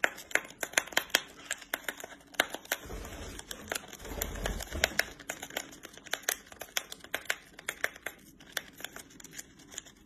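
A lovebird biting and tearing at the edge of a paper tea packet with its beak: rapid, irregular crinkling and crackling clicks, with a brief low rumble about three to five seconds in.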